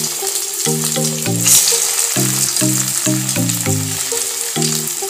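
Breadcrumb-coated, potato-stuffed bread rolls deep-frying in hot oil in a wok, with a steady crackling sizzle that flares up briefly about a second and a half in. Background music with a rhythmic low melody plays underneath.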